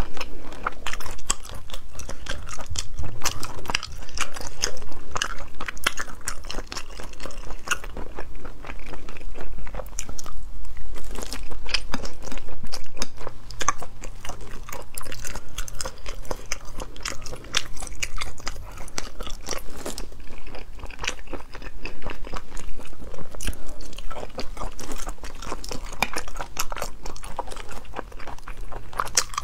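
Close-miked eating: a person biting and chewing spicy braised food, with wet, crunchy mouth sounds and many small clicks, on and off throughout.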